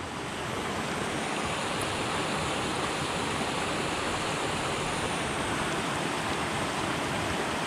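Steady rush of a fast-flowing river current, fading in over the first second.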